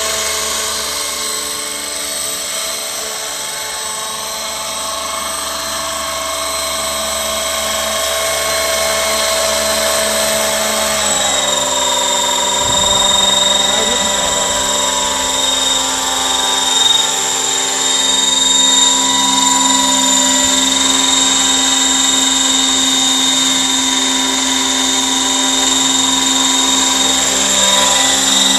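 Radio-controlled scale AS 350 helicopter (Funkey fuselage) in flight: a steady, high-pitched whine of motor, gears and rotor. Its pitch shifts about eleven seconds in and then holds, slightly louder.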